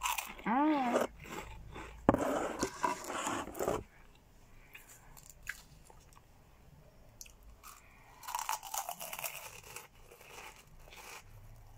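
Crunchy Cheetos corn snacks being bitten and chewed close to the microphone, loudest about two seconds in, with softer chewing near the end. A brief voice sound, rising then falling in pitch, opens it.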